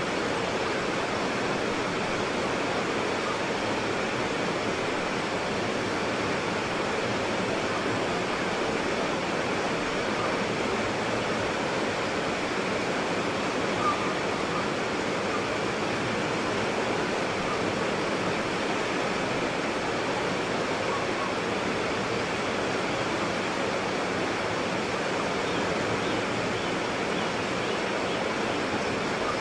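White water rapids rushing, a steady even roar of churning water. A brief small splash about halfway through.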